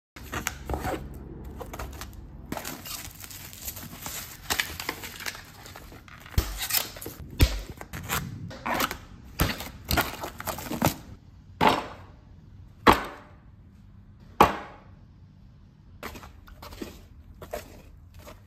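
Hands working on a small canvas and its materials: a run of scraping, rustling and knocking, with a few sharp scrapes that fade out towards the middle.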